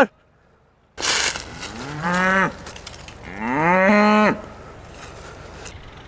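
Cows mooing twice: a short moo about two seconds in, then a longer moo that rises in pitch and then holds. A brief rush of noise comes about a second in.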